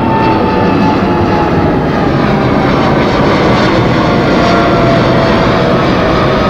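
Boeing 777-300ER's twin GE90-115B turbofans at takeoff power as the airliner climbs out overhead: a loud, steady jet rush with a thin whine that slides slowly down in pitch as it passes.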